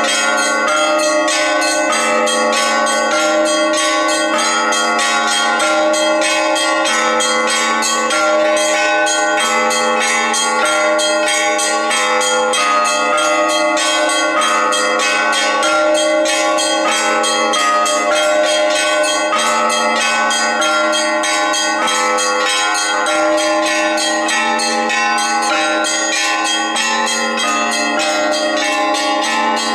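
Orthodox monastery bells ringing a peal: many bells of different pitches struck in quick, continuous succession over the steady ring of the larger bells.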